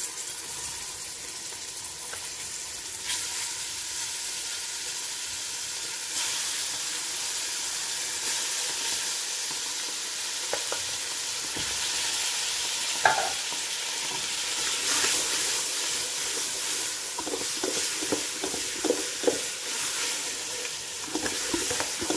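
Raw chicken pieces sizzling in hot oil with fried onions and kabsa spices. The sizzle steps up twice in the first few seconds, and short knocks and scrapes come near the end.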